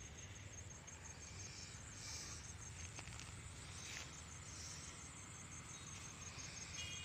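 A cricket chirping faintly, a high, evenly pulsed trill, with a couple of faint clicks near the middle.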